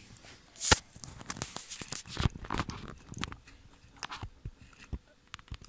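Orange slime being squished and pressed with a toy doll, giving irregular sticky clicks and crackles, the sharpest one less than a second in.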